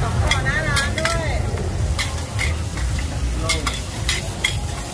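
Metal spatula and ladle scraping and clacking on a large flat griddle as mussel omelettes (hoi tod) sizzle in oil, with quick irregular scrapes throughout.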